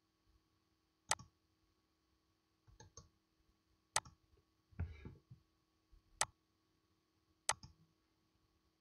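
Computer mouse clicks: a series of sharp single clicks spaced a second or more apart, with a duller knock about five seconds in.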